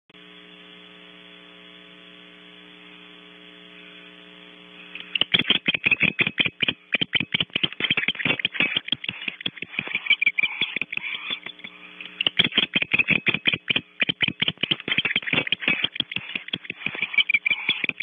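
Barn owls giving rapid trains of clicking, chittering calls in runs with short breaks, starting about five seconds in. Before that only a steady electrical hum from the nest-cam audio is heard.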